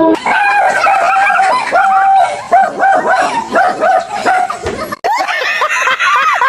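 A dog barking and yapping over and over in short, quick calls. About five seconds in, the barking cuts off suddenly and people laughing take over.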